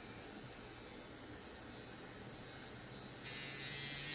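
Coil tattoo machine running on its power supply, its electromagnetic coils and armature bar buzzing steadily. The buzz grows and turns suddenly louder and harsher a little after three seconds in.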